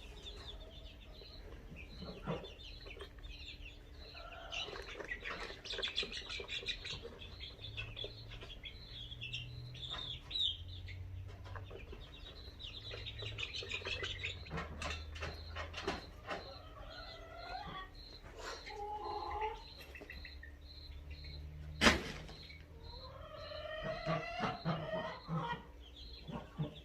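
Chickens clucking, with high-pitched chirps from young chicks throughout. A single sharp knock about four-fifths of the way through is the loudest sound.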